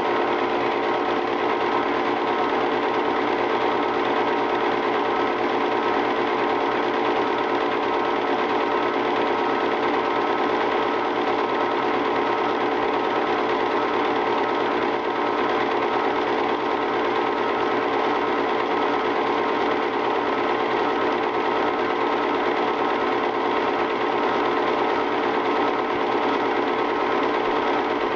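Film projector running, a steady mechanical whir with a fast, even clatter from the film being pulled through the gate.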